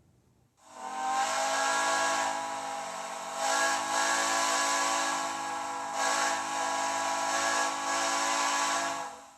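Steam locomotive whistle played by a TCS WOWSound DCC sound decoder through the small speaker in an HO-scale locomotive's tender. It gives one long blast of about eight and a half seconds, a steady whistle tone over steam hiss that swells louder a few times before cutting off.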